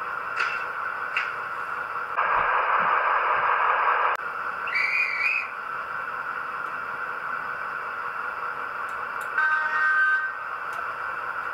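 Dapol Class 52 Western model locomotive's factory sound decoder through its small on-board speaker: a steady diesel idling hum under station effects of passengers boarding and doors being shut. Two sharp door-slam clicks, a noisy burst lasting about two seconds, then short whistle tones about five and ten seconds in.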